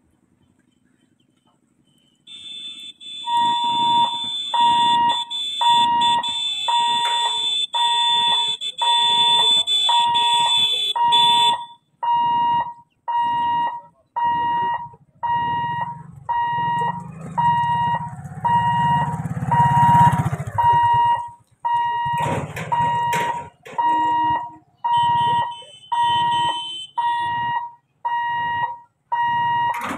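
Railway level-crossing warning alarm sounding, a pulsed electronic tone repeating a bit more than once a second, the signal that the gate is closing for an approaching train. For the first several seconds a continuous high-pitched electric bell rings over it, then stops. A motorcycle engine passes midway.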